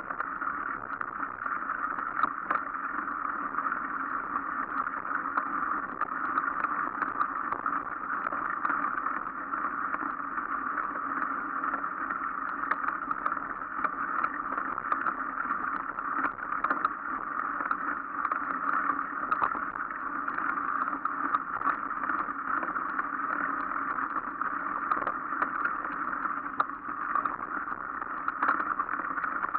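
Mountain bike rolling over a muddy, snowy dirt trail: a steady rush of tyre and wind noise with many small rattles and knocks from the bike.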